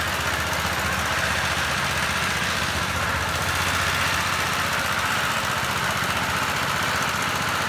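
Single-cylinder diesel engine of a two-wheel tractor running steadily with a fast knocking chug as it drives off carrying a rice threshing machine.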